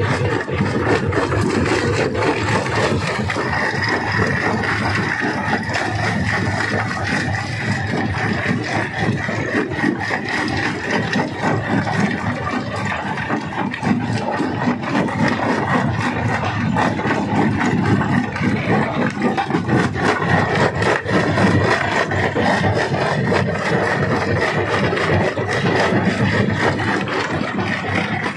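Rock crusher running under load, with constant clattering and scraping of stone being broken over a steady engine drone and a thin high whine.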